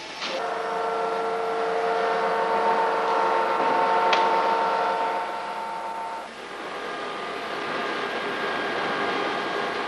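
Workshop machine tool running with a steady, multi-toned whine. A sharp tick comes about four seconds in. About six seconds in, the whine gives way to a broader mechanical rumble and hiss.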